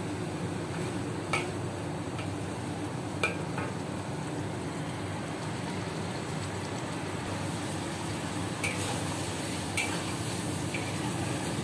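Chicken simmering in a thick sweet soy sauce in a wok, sizzling and bubbling steadily, with a metal spatula stirring and clinking against the wok a few times.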